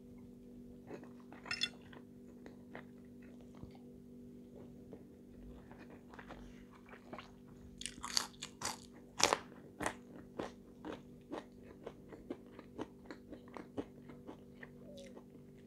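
Close-up eating sounds: chewing with irregular crunches and mouth clicks as crispy french fries are bitten and chewed, the crunching busiest from about eight seconds in. A faint steady hum lies underneath.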